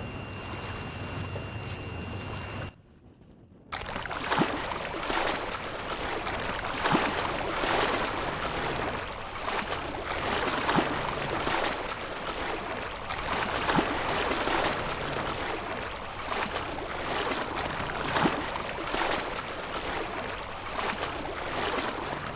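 Open sea water lapping and sloshing in small waves, with frequent irregular splashes. There is a short break to near silence about three seconds in.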